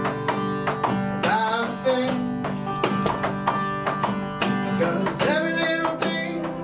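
A man singing to a strummed acoustic guitar, with sustained keyboard notes underneath.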